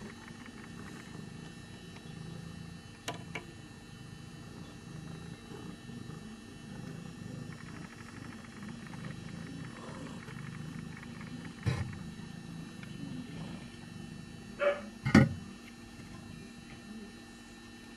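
Bengal mother cat purring, a low continuous rumble, with a few faint clicks and two short, louder sounds about fifteen seconds in.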